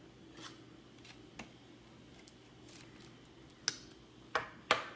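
Trading cards being handled and slid into rigid plastic top loaders: faint clicks at first, then three sharper plastic clicks and scrapes close together near the end.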